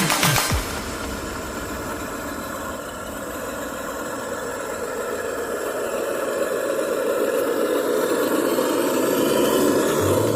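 A 1/10-scale RC crawler's electric motor and gearbox whining steadily as it drives, growing louder toward the end.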